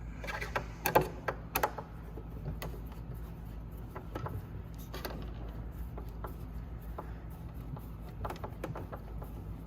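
Scattered light clicks and knocks as a retaining screw is started and turned into the plastic tub latch mount of a shop vacuum, busiest in the first couple of seconds and again near the end, over a low steady hum.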